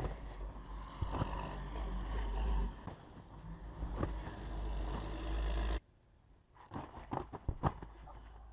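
Wind rumbling on the camera microphone over irregular thumps of feet landing on an Acon trampoline mat. About six seconds in the rumble cuts off suddenly, and a quick run of sharp landing thumps follows.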